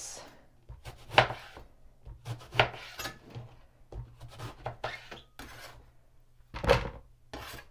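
Kitchen knife chopping an eggplant into large chunks on a cutting board, a series of uneven blade strokes knocking on the board, the loudest near the end.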